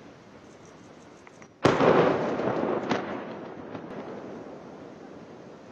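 A sudden loud explosion about a second and a half in, its rumble dying away over the next few seconds, with a second sharp crack about a second after the first.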